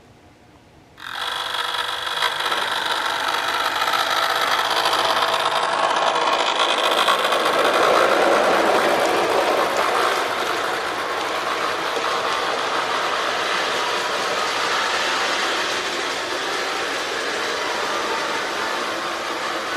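Marx 1998 toy diesel locomotive running with its diesel roar sound unit on, a steady rattling noise mixed with the motor and wheels, starting about a second in and swelling a little in the middle.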